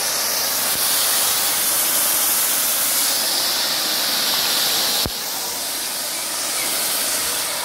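Cake sparkler fountains hissing steadily as they spray sparks. There is a single sharp click about five seconds in, after which the hiss is a little quieter.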